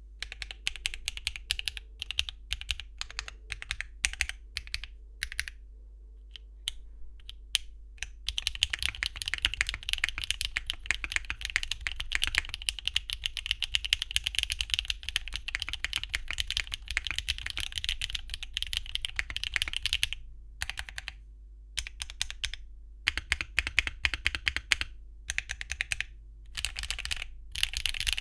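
Typing on a mechanical keyboard: a Mode Envoy with a copper plate, Akko Cilantro tactile switches and Cherry-profile ABS keycaps. Single, spaced key presses come first. About eight seconds in they give way to fast continuous typing, broken by a few short pauses near the end.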